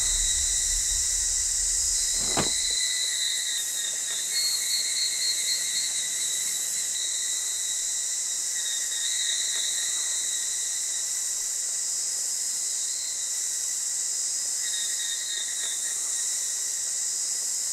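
Steady, high-pitched chorus of insects buzzing, dense and unbroken, with a single short knock about two seconds in.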